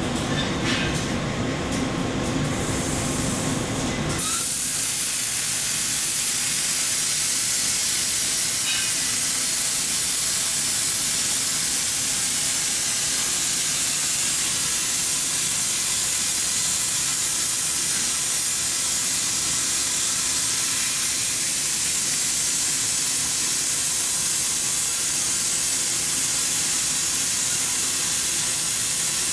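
Welding equipment running: a lower, rougher noise changes abruptly about four seconds in to a loud, steady hiss that holds without a break.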